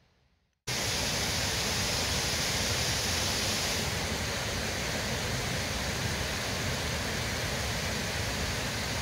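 Steady rushing of a fast-flowing rocky hill stream, starting abruptly just under a second in.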